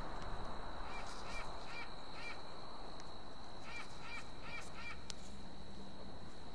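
A bird calling in two runs of four short calls, the second run starting a little after the middle, over a faint steady high-pitched tone.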